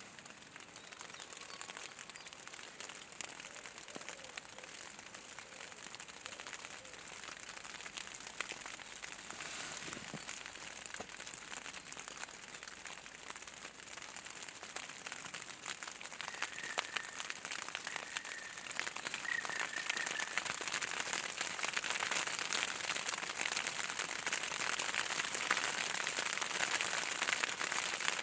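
Graupel falling on pond water and dry reeds: a dense hiss of countless tiny ticks that grows heavier and louder over the last third. A few faint, short, high bird notes come about two-thirds of the way through.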